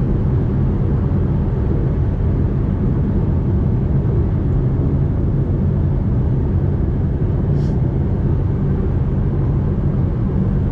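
Fiat Toro Volcano diesel pickup cruising at road speed: a steady low engine drone mixed with tyre and road noise.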